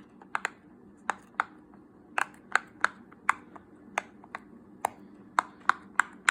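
Silicone pop-it fidget toy shaped like Santa Claus having its bubbles pressed through one after another, giving a quick, uneven series of sharp little pops, two or three a second.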